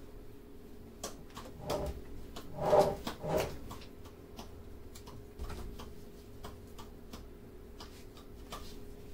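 Grocery items handled and set down on a hard floor: scattered light clicks and knocks, with a louder clatter about three seconds in. A faint steady hum runs underneath.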